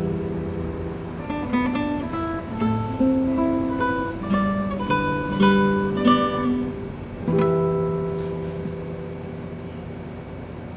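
Solo acoustic guitar playing a melody over bass notes, then a final chord about seven seconds in that rings out and fades away.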